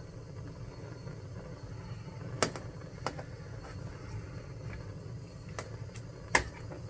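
A few sharp clicks and taps from kitchen utensils and cookware being handled while cooking, the loudest about six seconds in, over a steady low hum.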